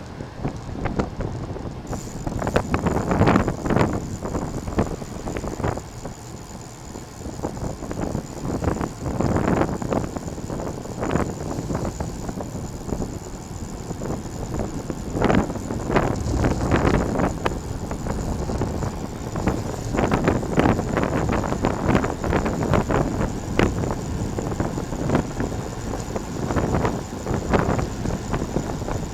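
Wind buffeting a moving microphone in irregular loud gusts, with a thin steady high whine that comes in about two seconds in.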